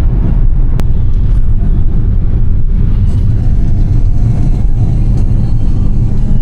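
Steady low rumble of engine and road noise inside a moving vehicle, with a single sharp click a little under a second in.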